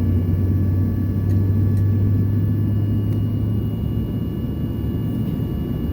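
Boeing 737-800's CFM56-7B jet engines running, heard inside the cabin: a steady low rumble with faint steady whines above it.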